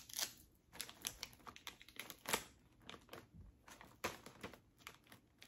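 Plastic chip bags crinkling and rustling in short, irregular crackles as they are handled and pushed into place, the loudest crackle about two seconds in.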